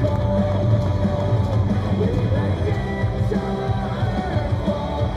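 A baseball player's cheer song playing loudly over stadium loudspeakers: an upbeat rock-style tune with singing over a pulsing beat.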